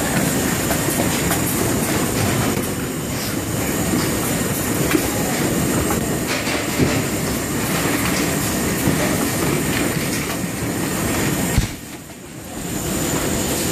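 Shrink-wrap packaging line running: a steady mechanical rumble with light clatter from wrapped plastic tubes sliding down the steel chute onto the steel table. Near the end there is a sharp knock, and the sound drops away briefly before it returns.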